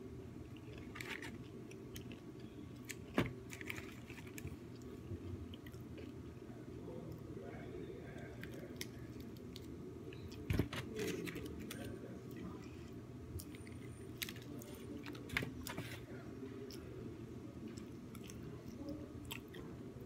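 A person chewing food close to the microphone, with some crunching and a few sharp clicks, over a steady low hum.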